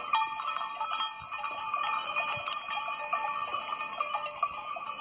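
Several bells worn by a herd of goats clanking irregularly as the animals move, with overlapping ringing tones and many small strikes.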